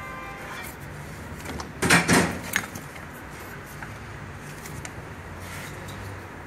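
Clatter and clicks of hands and tools working among the engine's belt, pulleys and hoses. The loudest part is a short cluster of knocks about two seconds in, with scattered small clicks after it.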